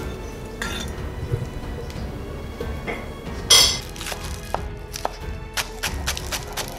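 Chef's knife chopping green onions on a wooden cutting board: quick regular knife strokes, about five a second, begin past the middle, after a short loud noise about halfway through.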